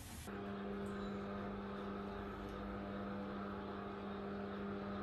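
Electric motor of a motorized terrace parasol (sunshade) running as the shade is put out, a steady even hum that starts about a third of a second in.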